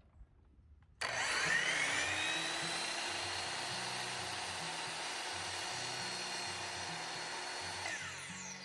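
Ridgid 10-inch sliding miter saw motor switching on about a second in, rising in pitch to full speed and running steadily through a cut in wood molding, then winding down with a falling whine near the end.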